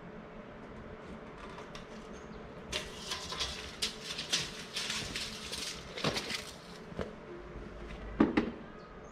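A steel tape measure being handled while a metal tube is measured: scraping and rustling with scattered clicks, then a few sharp clacks near the end.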